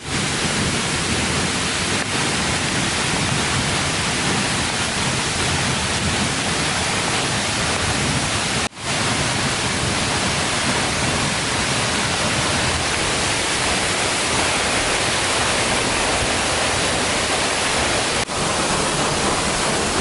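A waterfall's steady rushing, an even wash of water noise. It drops out briefly about nine seconds in and again near the end, where the recording is cut.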